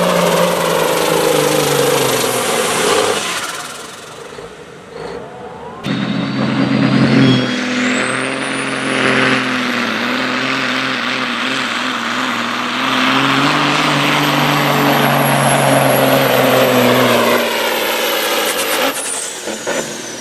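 Diesel semi-truck engines running hard under full load while pulling a weighted sled. The first engine labours with its pitch sagging and fades out a few seconds in; after a sudden cut about six seconds in, a Freightliner cabover's diesel runs hard and steady with a high whine climbing over it, both dropping away near the end.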